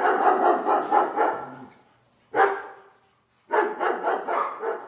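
Dog barking in quick runs of short barks. A first run fades out within about a second and a half, a single bark follows, and a second run of barks comes near the end.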